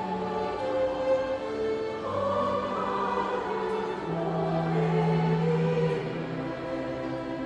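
Vocal ensemble singing in several parts, holding long notes that change pitch every second or two.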